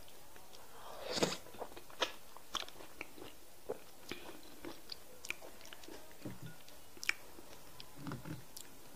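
Close-miked mouth sounds of eating semolina fufu with slimy okra soup by hand: irregular wet clicks and smacks of chewing, loudest about a second in as a mouthful goes in.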